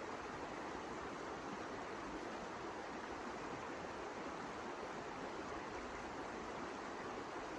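Steady, even rushing noise with no separate sounds standing out.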